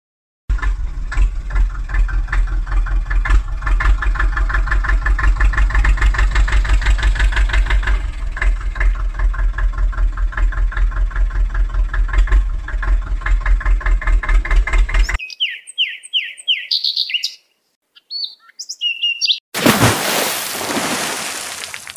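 Tractor engine sound chugging with a fast, steady pulse, cutting off sharply after about fifteen seconds. A few short chirps follow, then near the end a burst of rushing noise.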